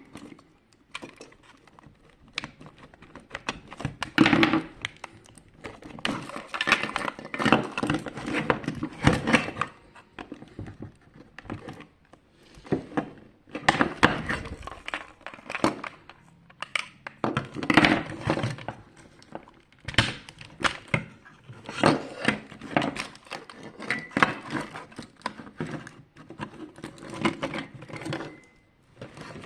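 Plastic parts and small tools being handled while a projection alarm clock is taken apart: irregular clicks, knocks and rustling throughout.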